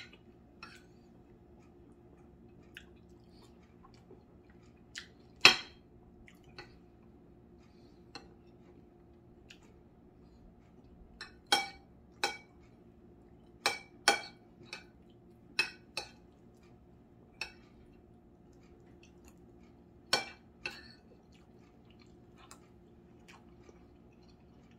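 Cutlery clinking and scraping against a plate as someone eats, about a dozen sharp ringing clinks at uneven intervals, the loudest about five seconds in, with quiet chewing in between.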